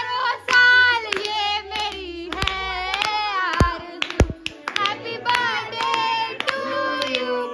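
Girls singing loudly together with scattered hand claps, over quieter background music.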